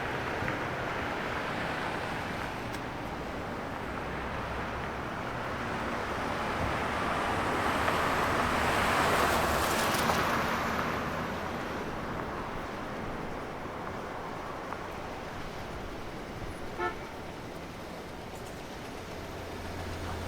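Road traffic: a steady rush of cars passing by, with one vehicle swelling up close and passing about halfway through. Near the end there is a brief car-horn toot.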